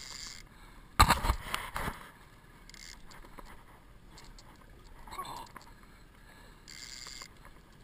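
Handling knocks from fishing gear in a small aluminium boat: a quick cluster of loud knocks and clatter about a second in. Faint wind and water noise follows, with a couple of short bursts of hiss.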